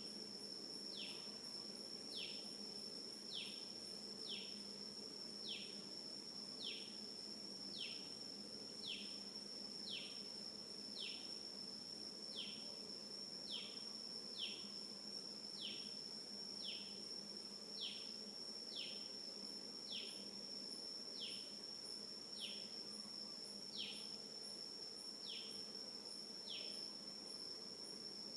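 Outdoor ambience: a steady high-pitched insect drone with a bird repeating a short, falling call about once a second.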